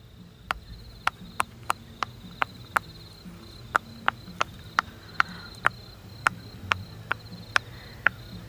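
Fingers pressing the bubbles of a silicone pop-it fidget toy one after another, each giving a sharp pop, about two to three a second. A steady high insect trill runs behind the pops.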